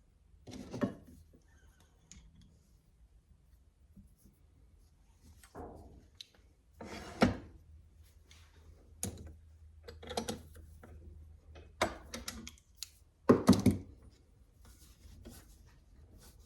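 Irregular wooden knocks, clatters and rubbing from handling the glued bamboo blank and tools on a workbench, loudest in a quick cluster of knocks near the end, over a faint low hum.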